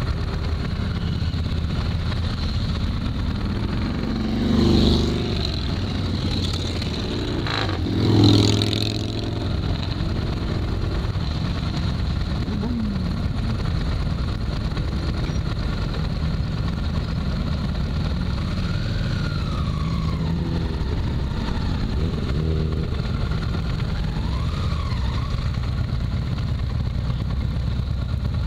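2007 Honda Shadow Aero 750's V-twin engine running under way, with steady road and wind noise, heard from a low mount by the front wheel. Two louder swells come about 5 and 8 seconds in.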